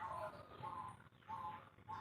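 Faint short bird notes repeating about every two-thirds of a second.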